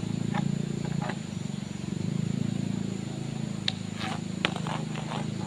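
An engine running steadily at low revs, with short high chirps over it near the start and again in the second half, and two sharp clicks.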